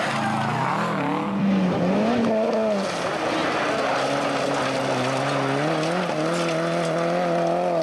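Rally car engines at speed on a gravel stage: revs rising and falling sharply for the first few seconds, then one engine pulling hard with its revs climbing steadily to the end, over a constant hiss of tyres and gravel.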